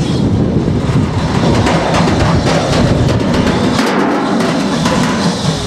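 GWR 57xx class pannier tank locomotive approaching under steam, its exhaust beating in a rapid, heavy, drum-like chuff over a low rumble.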